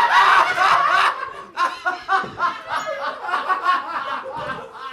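A person's voice in a run of short, broken, wordless outbursts, heard as laughter or fake sobbing.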